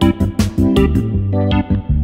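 Background music: an instrumental reggae-dub track with a deep, sustained bass line under regular, steady drum hits.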